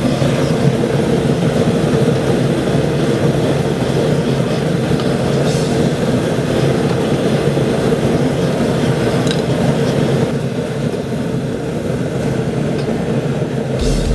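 Burner fire running with a steady, even rush.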